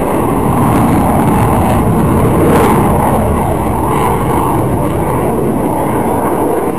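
Jet noise from a CF-18 Hornet's twin General Electric F404 turbofan engines: a loud, steady rush that swells to its loudest about two and a half seconds in, then eases off slightly.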